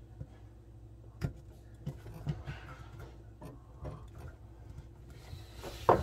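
Scattered small plastic clicks and knocks as the float switch of a GE dishwasher is worked loose by hand from the tub floor, the sharpest about a second in and another near the end, over a faint steady hum.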